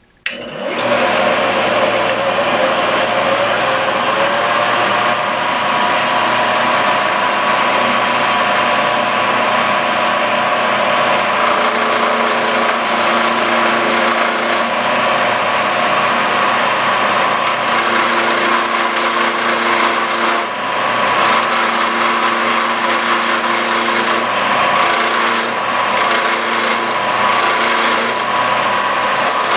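Shopsmith Mark V starting up just after the start and running steadily as a lathe, while the lathe duplicator's carbide triangle cutter turns a spinning wood blank.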